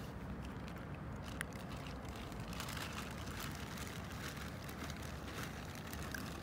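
Cats crunching dry kibble: small, crisp crackling ticks, sparse at first and thickening into a steady crunching about two and a half seconds in, over a steady low background rumble.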